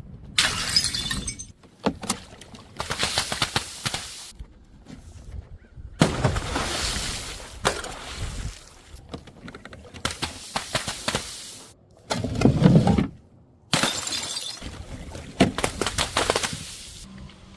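Glass bottles smashing one after another: about seven separate crashes of breaking glass, each with a short ringing tail.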